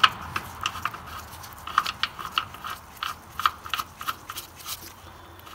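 Oil drain plug on a Kohler single-cylinder engine being threaded back in by a gloved hand: irregular small clicks and scrapes of metal threads and fingers, several a second.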